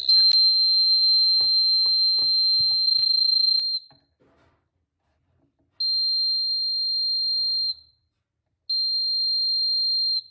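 Buzzer of a homemade water-tank level alarm sounding a steady high-pitched tone, signalling that the water has reached the sensor probe. A long tone of about three and a half seconds, then two shorter tones of about two seconds each with silent gaps between.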